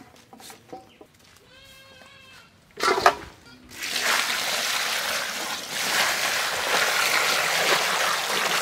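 Water pours in a steady stream into a bowl of chopped Malabar spinach leaves, splashing loudly from about four seconds in. Before it there is a short animal call, a goat-like bleat, and then a single loud knock.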